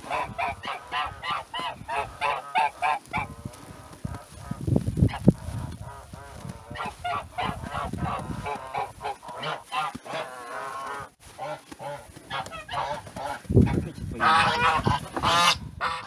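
Domestic geese honking and cackling in quick runs of short repeated calls, coming in three bouts, with a few low dull thumps about five seconds in and again shortly before the end.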